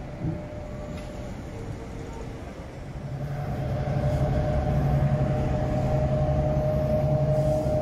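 Diesel work locomotive engine running steadily as it moves a subway train slowly past. It gets louder about three seconds in and settles into a steady, even drone.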